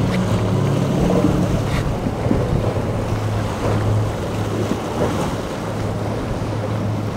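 Boat engine running steadily over the rushing noise of waves in a rough inlet, with wind on the microphone.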